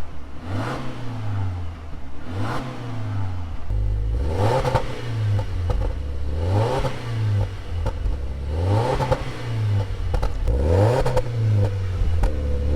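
2020 Subaru Forester's 2.5-litre flat-four revved again and again through a new HKS Legamax exhaust, the revs rising and falling about every two seconds.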